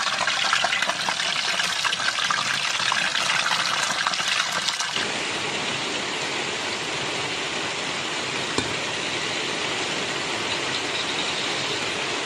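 Chicken frying in a pan of hot oil, a crackling sizzle full of fine pops. About five seconds in, the crackle gives way suddenly to a smoother, steady hiss.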